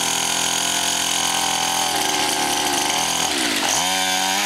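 A 50cc pocket dirt bike's small engine running under a child rider at a steady pitch, easing off briefly a little over three seconds in, then climbing back up.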